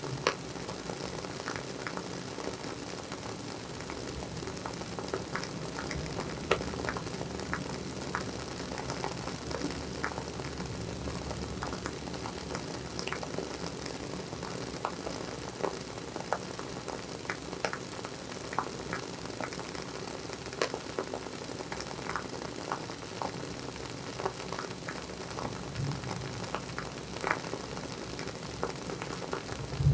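WoodWick candle's wooden wick crackling as it burns: a soft steady hiss with frequent, irregular small pops and snaps, like a tiny fireplace.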